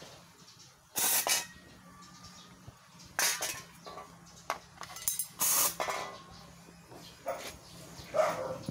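Handheld steam cleaner firing several short jets of steam, each hiss lasting a second or less, with pauses between.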